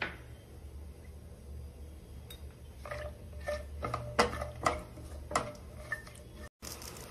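Silicone spatula stirring cashews in oil in a nonstick pan: a run of sharp clicks and knocks from the spatula and nuts against the pan in the second half, loudest a little past the middle, over a low steady hum.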